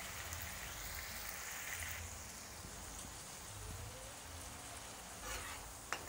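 Tomato and spice masala sizzling gently in oil in a kadai over a low gas flame, a steady fine crackle. Near the end a few sharp clicks as a spatula starts to stir it in the pan.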